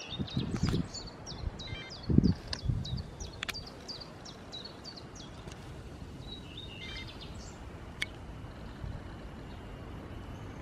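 A small songbird chirping in quick repeated short high notes, about three a second through the first few seconds, with a few more later. A few low thumps early on are the loudest sounds, and there are a couple of sharp clicks.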